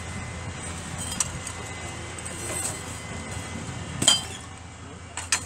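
Clay bricks clinking and knocking against each other as they are picked off a stack by hand. There are a few sharp knocks, the loudest about four seconds in, over a low steady rumble.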